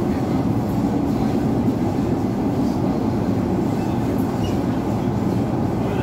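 Class 345 electric train running through a tunnel, heard from inside the carriage: a steady low rumble of wheels on rail.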